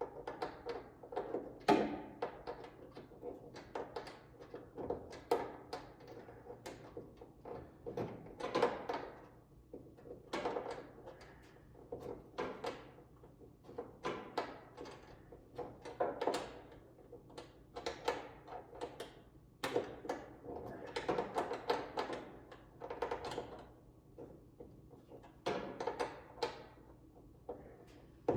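Irregular clicks, taps and knocks of hand work as nuts are threaded onto the mounting studs of a car's front spoiler, with no steady machine sound.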